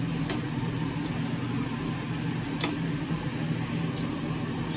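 Steady low mechanical hum with hiss, like a kitchen fan or gas burner running, with two faint metallic clicks from metal tongs against the aluminium pot, one just after the start and one a little past halfway.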